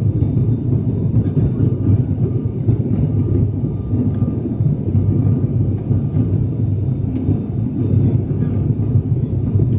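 Steady, loud drone of an ATR 72-600's turboprop engines and propellers heard inside the passenger cabin during the descent for landing, with a faint steady whine above it.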